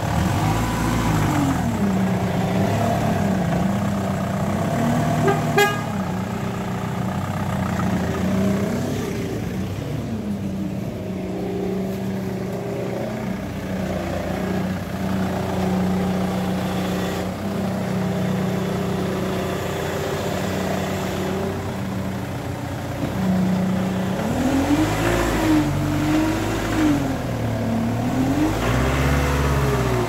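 Ford Mondeo engine running with a failing power steering pump giving a steady pitched whine. The pitch rises and falls several times, most strongly near the end.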